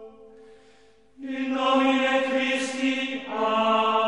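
Choral chanting in long held notes. It drops low, then comes back louder about a second in, and shifts to a new note about three seconds in.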